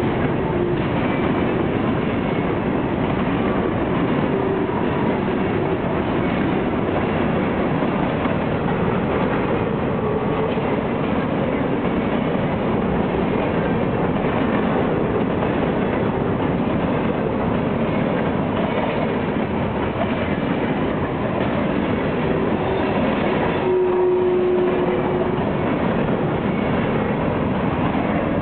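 Freight train cars rolling past: a steady rumble of steel wheels on rail with clickety-clack over the rail joints. A short steady tone rises above it about three-quarters of the way through.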